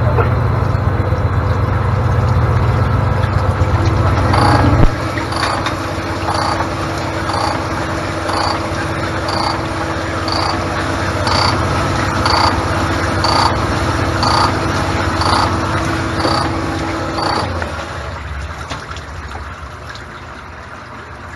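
Cylinder honing machine running in a golf cart engine block's bore. It gives a loud motor hum for the first few seconds, then a steady tone with a regular pulse about once a second as the hone strokes up and down. It dies away a few seconds before the end.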